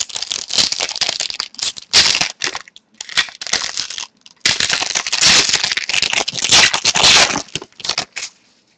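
Trading-card pack wrapper being torn open and crinkled, a run of crackling bursts with a longer unbroken stretch about halfway through.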